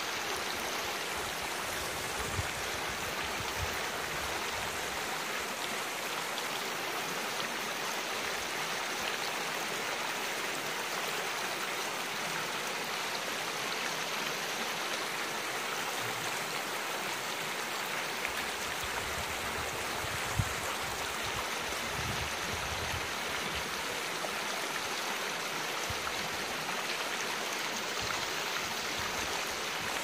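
Shallow mountain creek running over rocks: a steady rush and babble of flowing water, with a brief low bump about two-thirds of the way through.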